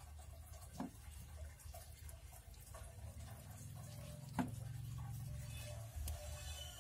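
Stir-fried pak choy in thick sauce being tipped from a pan onto a ceramic plate: soft wet sliding and dripping, with a light clink about a second in and a sharper clink of the pan's edge on the plate a little after four seconds, over a low steady hum.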